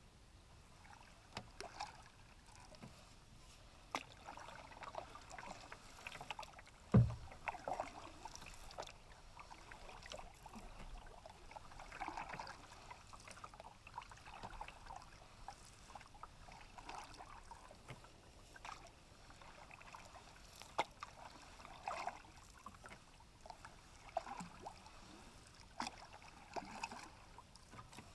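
Canoe paddle strokes: the blade swishing and dripping in calm river water about every two seconds. About seven seconds in there is a single low thump, the loudest sound.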